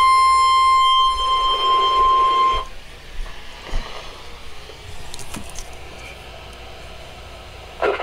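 Midland weather radio sounding the steady warning alarm tone for a Special Marine Warning, which cuts off sharply about two and a half seconds in; after that only quiet room sound with a few faint clicks.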